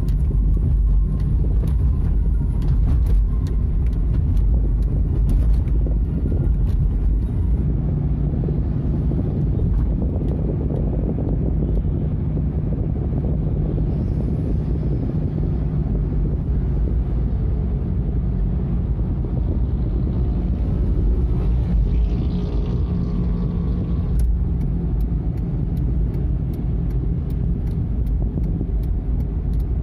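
Steady low rumble of a motor vehicle running on the road.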